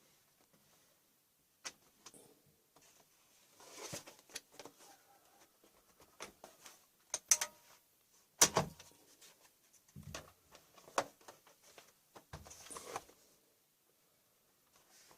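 Scattered light clicks and knocks of a Dell Vostro laptop's plastic case being handled and worked on. The loudest are a few sharp clicks a little past the middle.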